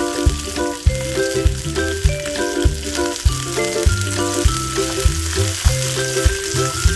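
Bean sprouts sizzling as they are stir-fried in hot oil in a pan, a steady hiss. Background music with a steady beat plays over it.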